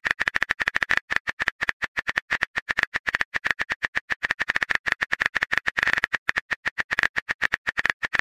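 Rapid keyboard typing sound effect: a fast, even run of short clicks, about ten a second, as a message is typed out letter by letter.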